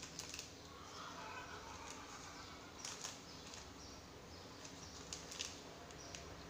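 Faint soft rustling of hands rubbing softened butter into flour in a plastic bowl, with a few light crackles from a small paper sachet being shaken out over it.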